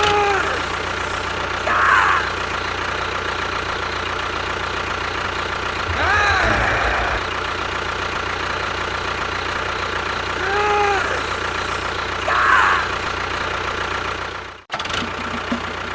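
A small motor running steadily, with a few short rising-and-falling calls or squeaks over it; the motor cuts off sharply about a second before the end.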